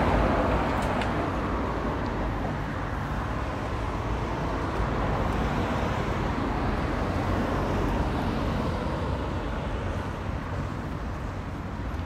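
Steady road traffic noise from a city street, rising slightly about two-thirds through.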